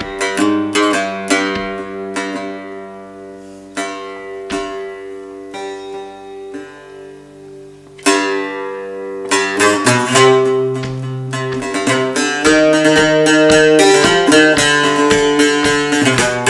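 Mandole played solo with a pick: a few slow plucked notes left to ring out, then, about eight seconds in, a louder struck note and a faster, busier run of picked notes.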